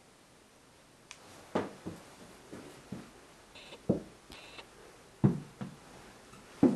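Footsteps on a wooden floor: irregular soft thuds about a second apart, starting about a second in, with a couple of brief high squeaks in between.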